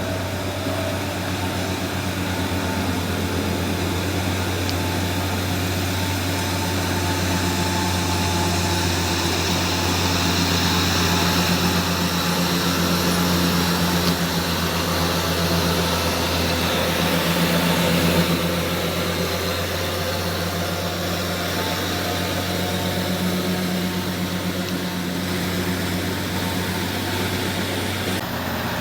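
Heavy diesel truck engine running with a steady low drone; a higher note in it swells and eases a few times.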